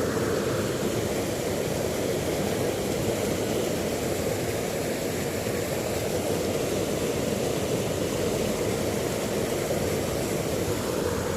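Steady rush of a rocky river's water flowing over stones, an even noise without breaks.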